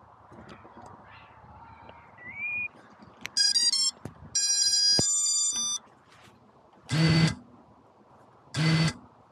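FPV quadcopter's T-Motor ESCs playing their power-up beep tones, a quick run of short beeps and then longer stepped tones. Then the brushless motors spin up in two short bursts about a second and a half apart.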